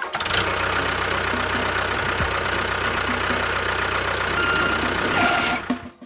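An engine idling steadily with a fine, even pulse, cutting off abruptly near the end.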